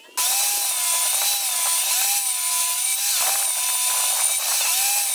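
Electric power tool cutting wood: a steady high motor whine over a hissing cut, its pitch sagging and recovering several times as it bites into the wood.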